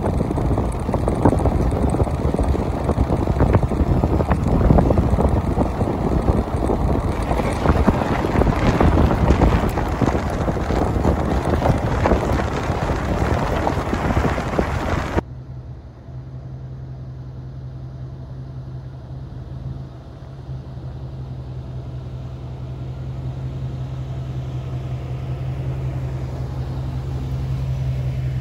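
Ford F-150 pickup driving on a gravel road, with loud wind buffeting and tyre noise; this cuts off suddenly about halfway, giving way to the truck's steady low engine hum, which grows louder as it approaches and climbs a sandy rise.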